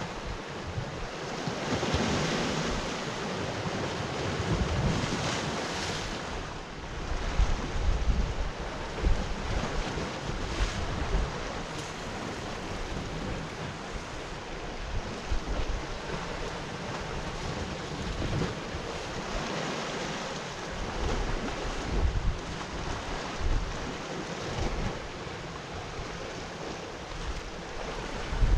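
Sea waves washing in, surging and easing, with gusts of wind buffeting the microphone.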